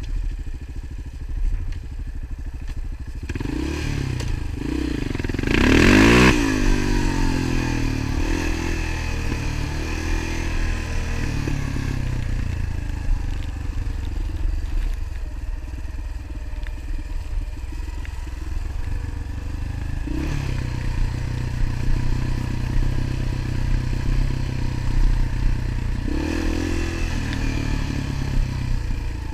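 Motorcycle engine running under way, revving up hard about five seconds in and again near the end, between stretches of steady running.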